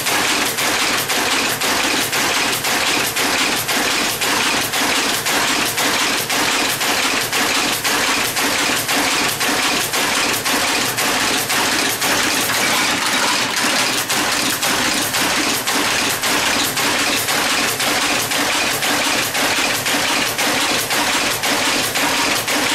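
Monotype type-casting machine running and casting type: a steady mechanical clatter at an even rhythm of about two strokes a second.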